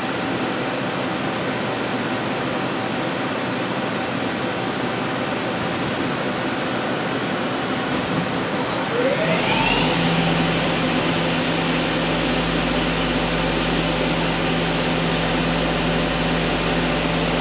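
Hurco CNC lathe starting its program: a steady machine hum, then about eight seconds in the spindle spins up with a rising whine and settles into a steady running tone under a loud hiss of coolant spray.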